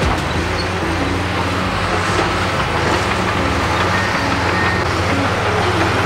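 Large diesel engines of heavy crawler earthmoving machines, a Komatsu PC210 excavator and a bulldozer, running steadily.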